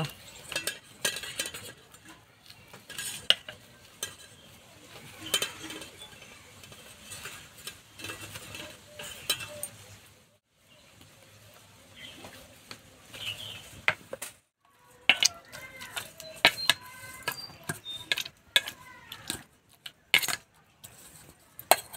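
A ceramic mug pressed and ground against a stainless-steel bowl, mashing boiled potatoes and then boiled tomatoes by hand. It makes irregular clinks and knocks of china on steel, with two short breaks.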